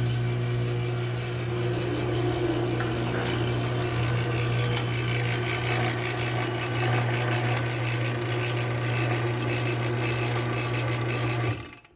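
A 2004 Craftsman chain-drive garage door opener runs with the trolley disconnected, so the motor drives the chain with no door load: a steady motor hum with chain and sprocket noise. It is stopped suddenly near the end, before it reaches a limit switch.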